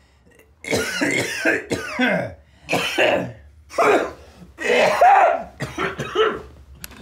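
A person coughing and clearing their throat repeatedly, in about eight separate bursts.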